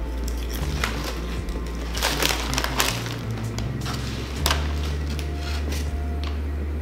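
Crunching of Lay's salt and vinegar potato chips being chewed, in a cluster of crackly crunches about two to three seconds in, then a single sharper crackle, likely the chip bag, about four and a half seconds in. Background music with a low bass line plays throughout.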